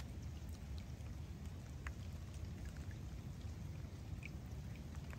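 Steady rain falling on a lake: an even hiss of rain with a low rumble underneath and scattered sharp ticks of single nearby drops.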